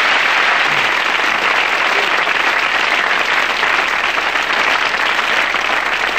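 A studio audience applauding steadily.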